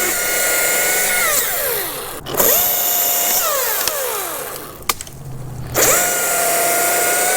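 Chainsaw cutting through a tree limb in three bursts at full speed, each with a steady high whine over the chain's cutting noise; after the first two the motor is let off and the pitch falls away.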